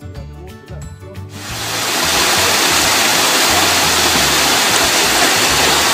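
Background music for the first second and a half, then a loud, steady rush of water jetting through a wooden canal lock gate and splashing into the lock chamber.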